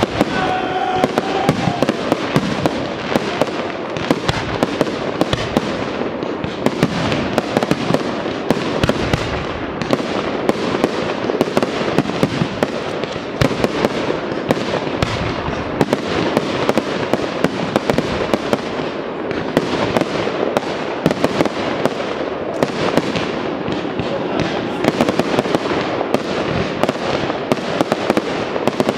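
Aerial fireworks display: shells bursting in quick succession, several sharp bangs a second over a continuous crackle, without a pause.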